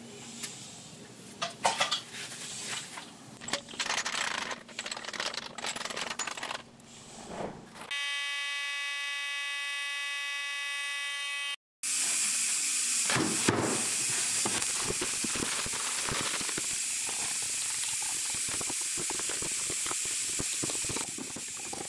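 Knocking and clattering of a paint pressure pot being loaded and its lid handled. About 8 s in, a steady high whistle sounds for a few seconds and cuts off suddenly, then a long, steady hiss of compressed air follows: the pot being pressurized to force the bubbles out of curing epoxy.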